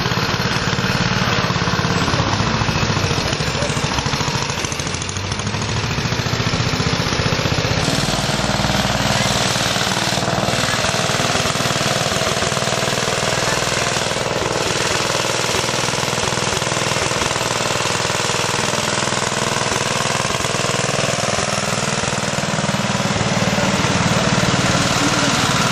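Small tractor's engine running with a fast, even beat as the tractor drives slowly across paving.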